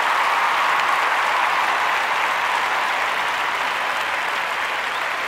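Crowd applauding, dense and steady, slowly easing off through the last few seconds.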